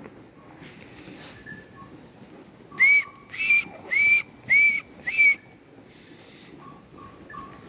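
A person whistling: five short, loud whistled notes in quick succession, about two a second, each rising and then falling in pitch. They begin about three seconds in.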